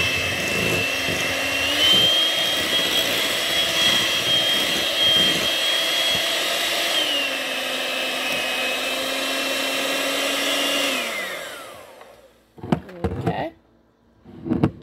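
Electric hand mixer running steadily, its beaters churning a thick cream cheese and whipped-topping mixture in a glass bowl. The whine steps up in pitch about two seconds in and drops back a few seconds later, then winds down and stops near the end.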